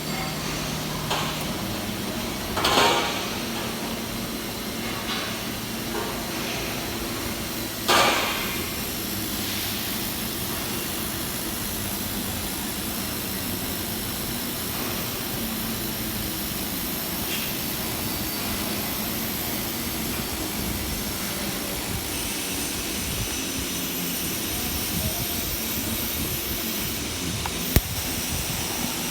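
Steady, even hissing noise of a metal workshop, broken by a couple of knocks about three and eight seconds in and a sharp click near the end.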